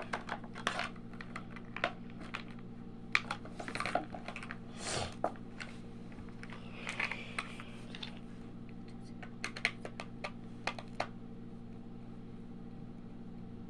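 Small plastic toy parts being handled, making irregular light clicks and taps that stop about eleven seconds in. A steady low hum runs underneath.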